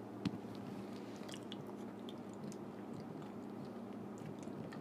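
Faint lip smacks and small mouth clicks of someone tasting frosting from a spoon, over a low steady hum.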